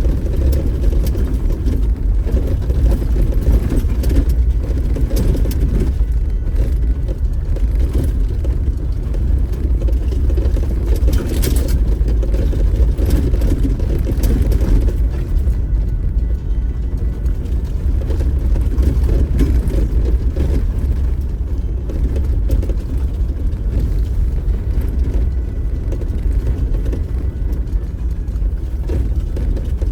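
Off-road 4x4 driving slowly over a rough dirt trail: a steady low engine and tyre rumble with occasional faint knocks and rattles.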